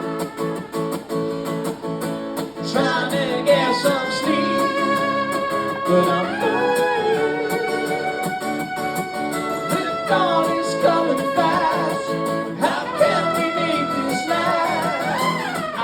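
Live acoustic band music: strummed acoustic guitar with a melodic lead line that bends and glides over it, in a break between sung verses.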